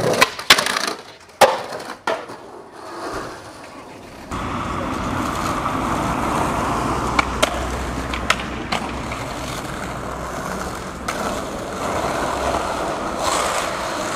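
Skateboard: several sharp clacks of the board against the ground in the first two seconds, then the steady rumble of the wheels rolling over pavement from about four seconds in, with a few scattered clicks of the board.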